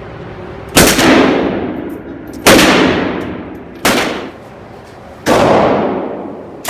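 Gunshots fired one at a time: four loud shots spaced about a second and a half apart, each ringing out and fading over about a second, with a fifth right at the end.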